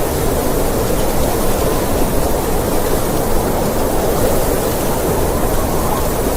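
Snowstorm wind blowing steadily, a continuous rushing noise with no gusts or breaks.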